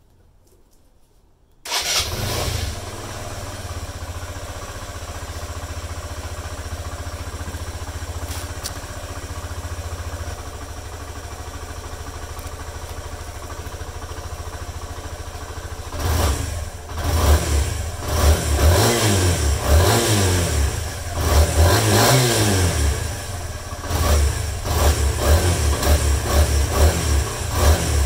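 Suzuki Van Van single-cylinder four-stroke engine through its stock exhaust silencer: it starts about two seconds in and idles steadily, then from about halfway is revved in a series of quick throttle blips, its pitch rising and falling with each.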